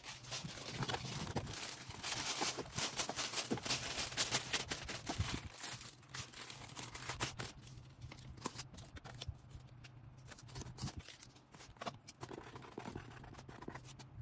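Packaging being handled for an order: rustling and crinkling, with many small sharp clicks and taps, busiest in the first half.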